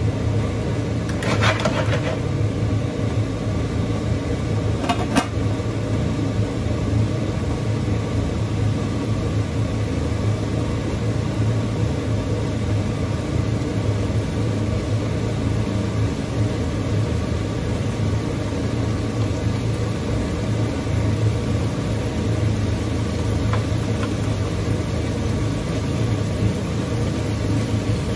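Lamb steaks frying in a grill pan on a gas hob under a steady low rumble, with tongs clinking against the pan about a second in and again about five seconds in.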